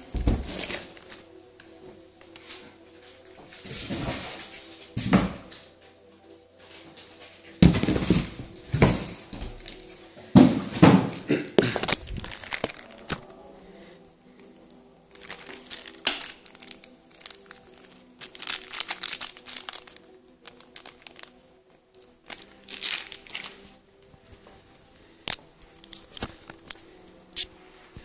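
Clear plastic packaging bags crinkling and rustling in irregular bursts as they are handled and opened during unpacking.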